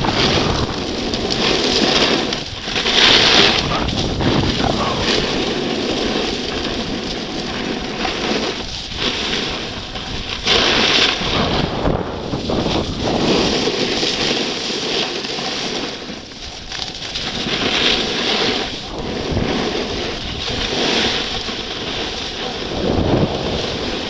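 Wind rushing over the microphone of a camera moving fast down a ski slope, with the hiss and scrape of edges on packed snow swelling several times as the rider turns.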